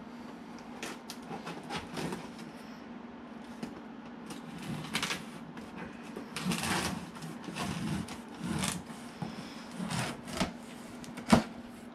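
Packing tape being pulled and torn off a large cardboard shipping box, then the cardboard flaps pried open: irregular ripping, scraping and rustling of tape and cardboard, with a sharp snap near the end.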